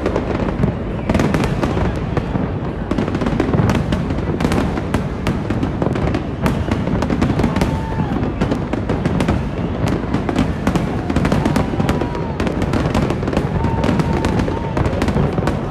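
A fireworks display in full barrage: dense, continuous crackling with many sharp pops over a low rumble, from gold bursts going off one after another.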